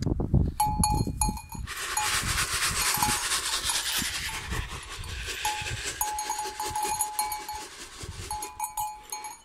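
A goat's metal collar bell clanking in short runs of rapid rings as the goat moves its head. Between the runs, from about two to five seconds in, there is a louder stretch of rustling noise.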